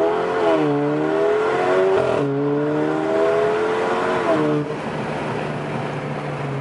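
Alfa Romeo Giulia with a catless, straight-piped exhaust accelerating hard from a standing start, heard from inside the cabin. The engine note climbs and drops back at gear changes about two and four and a half seconds in, then settles to a steady note near the end.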